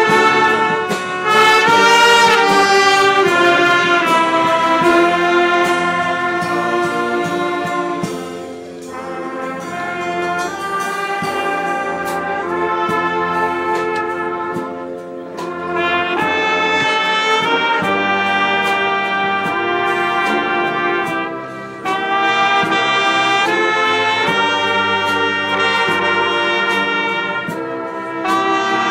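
Concert band of trumpets, trombones, tuba and clarinets playing sustained full chords. It drops to a softer passage about eight seconds in and swells back to full sound about halfway through.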